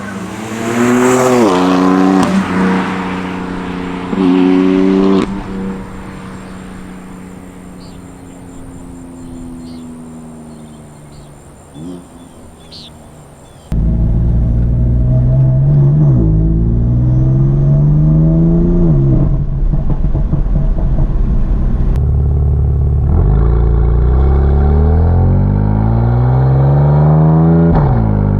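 BMW F82 M4's S55 twin-turbo inline-six, running through catless downpipes with a tune. It revs up hard twice in the first few seconds, then its note falls away and quietens. After a sudden cut about halfway through, it runs loud under hard acceleration, the pitch climbing and dropping back several times.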